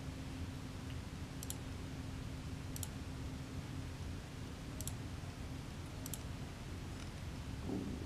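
Computer mouse clicking: about five short, sharp clicks a second or so apart, each a quick press-and-release pair, the last one fainter. They sit over a low steady hum, with a soft low thump near the end.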